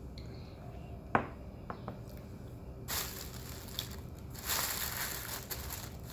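A ceramic mug set down on a table with a sharp knock about a second in, followed by two light clicks. A thin plastic bag then rustles and crinkles in two spells, briefly about three seconds in and again for about a second near the end.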